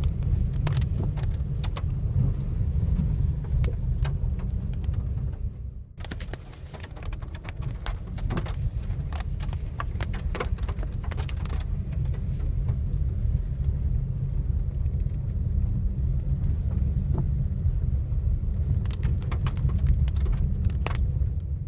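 Car driving on a bumpy road, heard from inside the cabin: a steady low rumble with scattered sharp knocks of rain and drips striking the roof. The sound drops out briefly about six seconds in.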